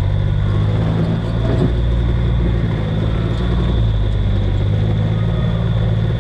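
A vehicle engine running slowly at low revs, a deep steady hum whose pitch shifts slightly, with a steady high-pitched whine above it.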